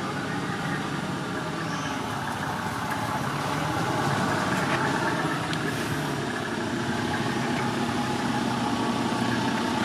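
An engine running steadily at idle, a constant mechanical hum.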